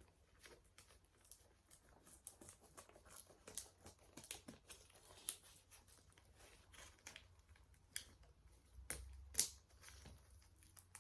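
Faint handling of a product box and its packaging as it is opened: scattered rustling, crinkling and small clicks, with a couple of sharper snaps about nine seconds in.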